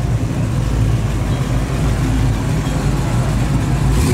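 Supercharged V8 of a 1970 Dodge Charger idling as the car creeps along, a steady, choppy low engine note.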